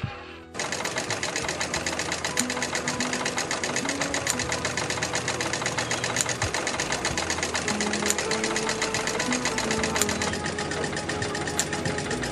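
Small working scale-model stationary engines and belt-driven models running on a display bench: a fast, even mechanical clatter with a louder click about every two seconds.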